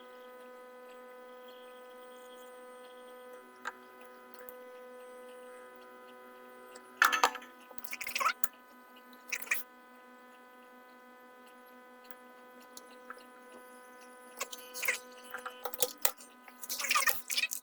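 Steady electrical hum of several steady tones from the repair bench equipment, with a few brief scrapes and clicks from tools being handled over the board: a cluster about seven to nine and a half seconds in, and more near the end.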